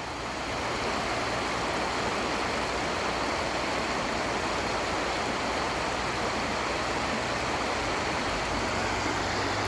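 Steady rush of flowing river water, an even hiss that holds without change.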